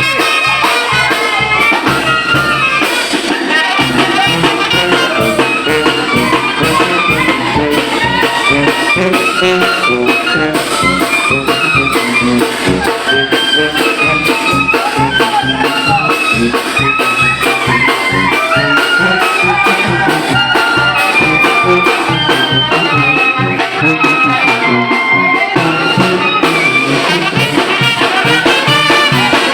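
Mexican village brass band (banda) playing a lively number, brass instruments carrying the melody over a steady drum beat.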